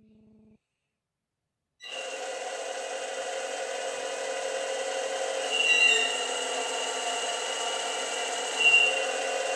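Hydraulic pump system of a 1:8 scale model Caterpillar 390D excavator starting up suddenly about two seconds in and running with a steady whir and hiss. Twice it briefly grows louder with a higher whine as the first hydraulic movements are made.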